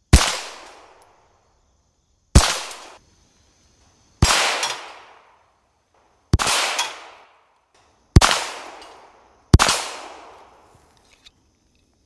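Six pistol shots fired slowly, one-handed, with about two seconds between them, each sharp crack trailing off in a short ringing tail.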